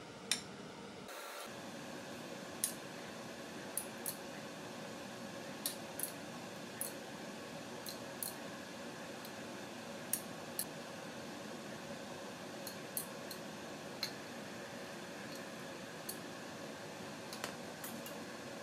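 A steady hiss with sharp clicks and ticks scattered through it, about one a second at irregular spacing.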